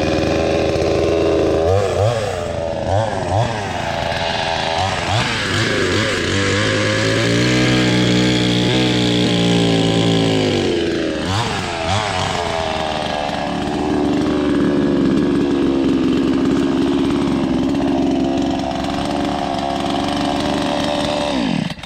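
Budget two-stroke gasoline chainsaw running after its start-up, revved in several quick throttle blips, settling lower in pitch for a few seconds in the middle, then running steadily before the engine winds down and stops near the end.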